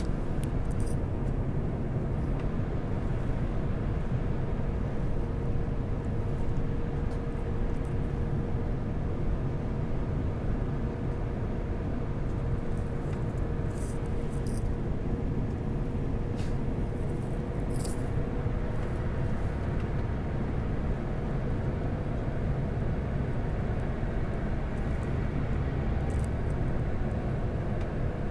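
Airbus A350-900 cabin noise on the approach: a steady rumble of airflow and engines heard from inside the cabin, with a faint steady hum that fades out about twenty seconds in.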